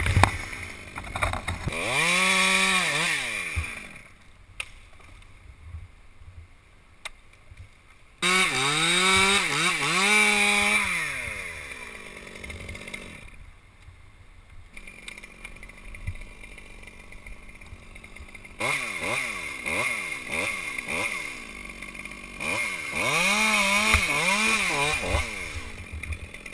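Chainsaw revving up in four bursts, its pitch climbing and sagging as it cuts into elm limbs, quieter between bursts.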